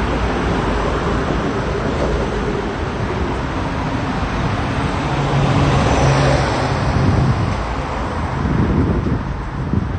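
Road traffic on a city street, cars and heavier vehicles driving past steadily. About six seconds in, a vehicle passes close, its low engine hum briefly the loudest sound.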